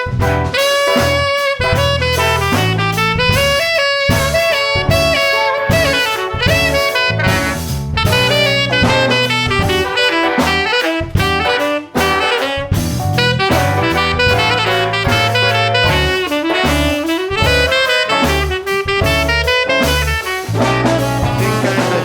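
Live jazz band instrumental break: a saxophone solo over drum kit and bass.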